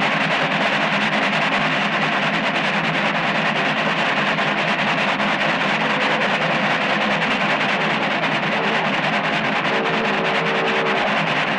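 Steam passenger train running at speed: a steady, loud rushing roar of the locomotive and wheels on the rails, with a faint brief tone about ten seconds in.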